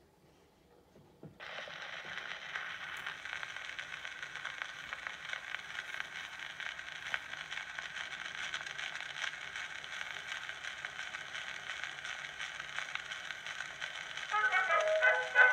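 Edison Triumph Model A cylinder phonograph playing an Amberol cylinder: a soft knock as the reproducer is set down, then a steady surface hiss with fine crackle from the stylus in the lead-in groove, heard through the horn. The band's introduction starts near the end.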